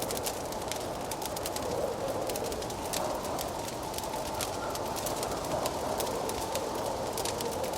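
Wood fire crackling with frequent sharp pops, over a steady howling wind that swells and eases.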